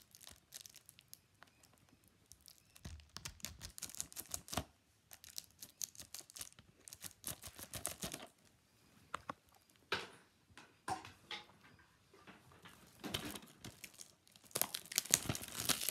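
Packaging being torn and crinkled as a DVD is unboxed: irregular crackling and tearing, sparse for a while, then busier and louder near the end.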